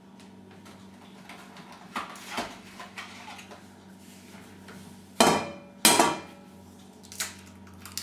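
Stainless steel mixing bowl clanking twice, two sharp ringing knocks less than a second apart, after some softer handling noises. These are the strikes of eggs being cracked on the bowl.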